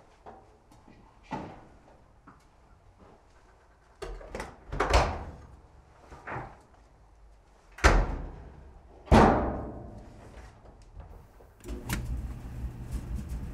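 Washer lid and dryer door being opened and shut, with several knocks and clanks; the two loudest are metallic bangs with a ringing tail, about 8 and 9 seconds in. Near the end the clothes dryer starts up with a steady low hum.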